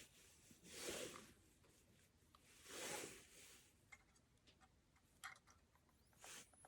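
Mostly near silence with two soft rushing swells and a few small clicks from handling. Near the end, a disposable camera's flash circuit starts charging its capacitor with a thin high whine that rises quickly in pitch.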